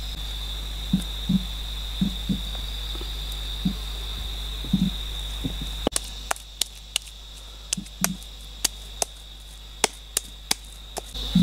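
Hands patting and slapping wet termite-mound clay, giving soft irregular thumps, then sharper slaps about every half second from about six seconds in. A steady high insect drone runs behind it, dropping out partway and coming back near the end.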